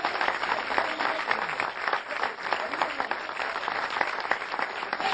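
Audience applause: many people clapping together at an even level.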